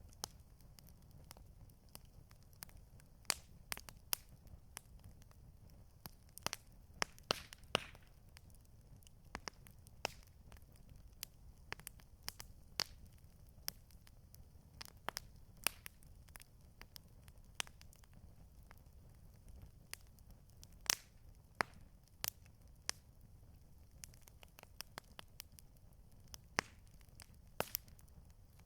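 Campfire crackling: irregular sharp pops and snaps from burning wood, a few much louder than the rest, over a low steady rumble.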